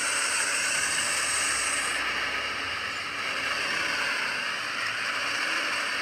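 Automated side-loading garbage truck running while its arm lifts a wheeled bin and tips it into the hopper: a steady hissing engine-and-machinery noise, with a thin high whine that stops about two seconds in.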